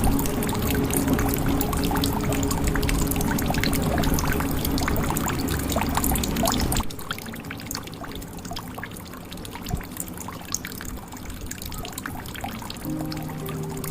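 Water pouring into a jug, then cutting off sharply about halfway through, leaving quieter scattered drips. Soft music with held tones plays underneath and comes up near the end.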